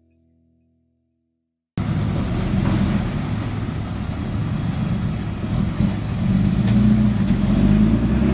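Heavy diesel engine of a dump truck tractor unit pulling a loaded-size dump semi-trailer, cutting in abruptly about two seconds in after a faded-out bit of music and running loudly as it moves slowly, getting a little louder near the end.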